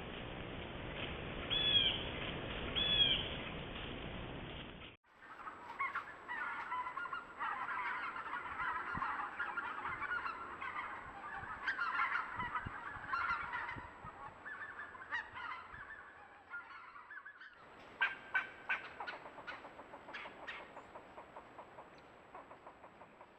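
Geese honking: two single honks over a steady hiss, then a flock calling over one another for about twelve seconds, then a run of short sharp notes that grow fainter.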